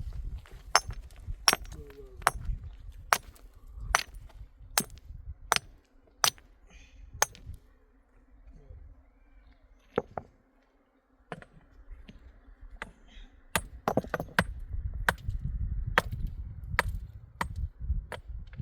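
Repeated sharp blows of a hand tool, about one every 0.8 seconds. They pause for several seconds in the middle, then start again, a few of them quicker.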